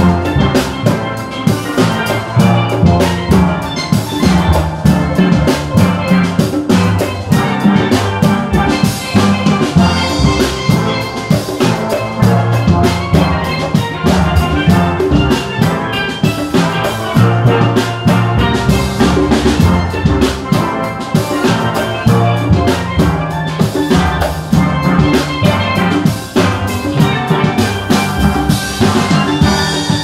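A steel band playing: many steel pans struck with rubber-tipped mallets, over a drum kit with cymbals keeping a steady beat.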